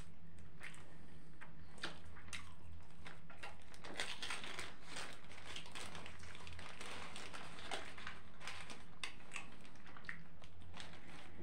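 Close-miked chewing of a shawarma: irregular wet mouth clicks and squishy crackles, thickest in the middle, with the paper wrapper rustling as it is handled. A steady low hum runs underneath.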